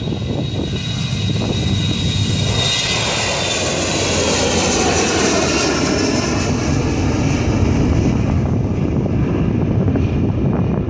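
Boeing 737-300's CFM56-3 turbofan engines at full takeoff thrust as the jet lifts off and climbs past: a loud jet roar with a high whine that swells about halfway through, then drops in pitch and eases as the aircraft moves away.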